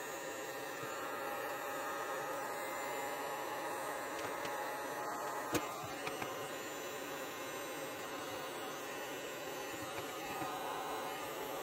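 Handheld heat gun running on its low setting: a steady fan whir and buzz.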